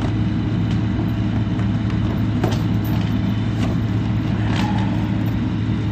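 Heavy truck engine idling steadily, a low even hum, with a few short knocks over it.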